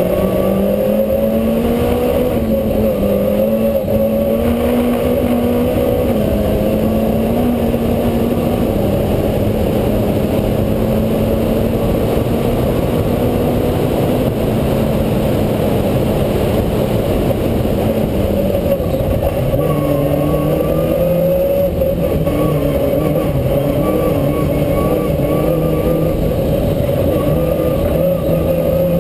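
Peugeot rally car's engine heard from on board, running hard with its pitch wavering slightly, then dropping to a lower, steady note about two-thirds of the way through, over constant tyre and road noise.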